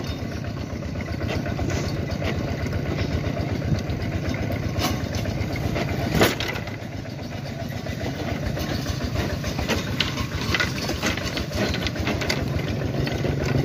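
Engine of a small farm vehicle running steadily under way, heard from its wooden cargo bed, with scattered rattles and one sharp knock about six seconds in.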